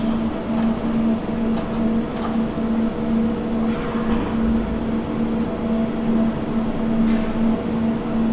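A steady machine hum with a couple of overtones, over a constant low rumble.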